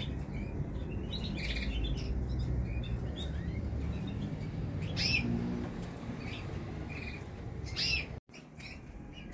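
Caged canaries chirping, with short calls scattered through. The clearest calls come about five and eight seconds in. Underneath is a steady low rumble.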